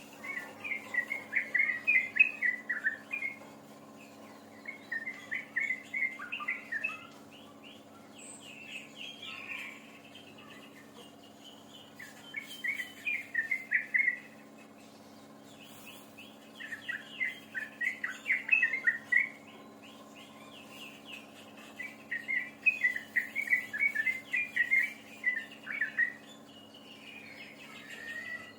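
A songbird singing in repeated bursts of rapid, chattering chirps, each a few seconds long with short pauses between them, over a steady low electrical-sounding hum.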